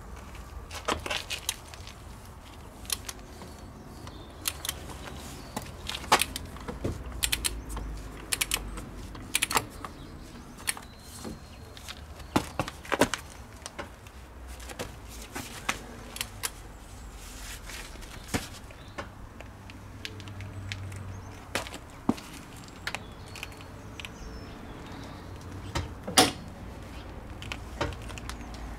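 Irregular sharp metallic clicks and clinks of a socket and torque wrench being worked on a car's front hub nut as it is tightened to torque, over a low steady background rumble.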